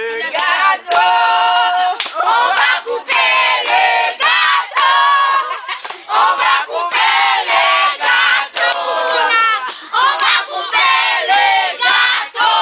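A group of children singing a birthday song together, loud and lively, in phrases with held notes.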